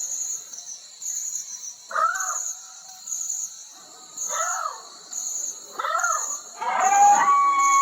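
A dog giving short yelping calls, each rising and falling in pitch, every second or two, then breaking into a long howl near the end that slowly falls in pitch. Insects chirp in a steady, even pulse throughout.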